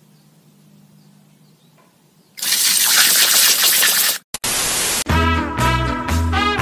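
Water from a garden hose spray nozzle hisses loudly for about two seconds as it sprays a dog. Near the end, swing music with a steady beat starts.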